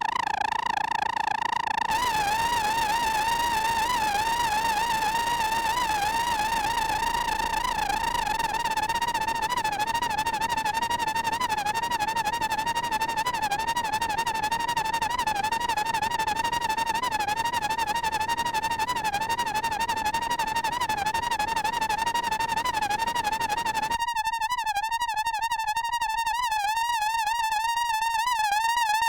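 Behringer Crave analog synthesizer holding one high note with a fast, uneven vibrato, sounding much like a theremin. A hiss of noise comes in about two seconds in and cuts out near the end.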